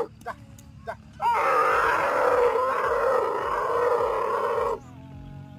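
Dromedary camel bellowing: a few short gurgling grunts, then one long call of about three and a half seconds that wavers in pitch.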